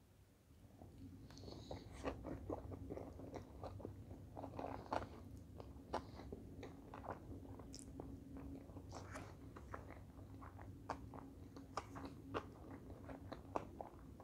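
Close-miked mouth sounds of a person chewing a mouthful of sushi roll: many soft, irregular wet clicks and crackles. A faint steady low hum runs underneath.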